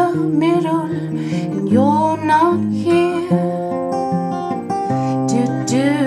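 A woman singing with acoustic guitar accompaniment, her voice rising and falling in phrases over the guitar's sustained chords.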